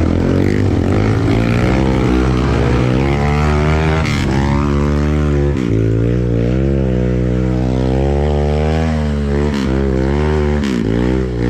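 Honda trail motorcycle engine revving hard and continuously, its pitch rising and falling as the throttle is worked.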